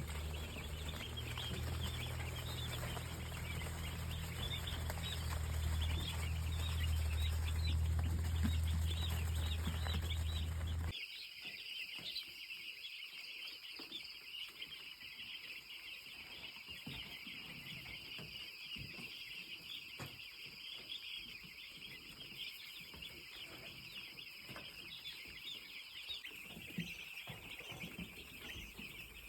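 Many chickens calling at once, a dense high chatter of overlapping clucks and peeps from a poultry flock. For about the first eleven seconds a strong low steady hum runs underneath and then stops abruptly; afterwards a thin steady high tone is heard for a while.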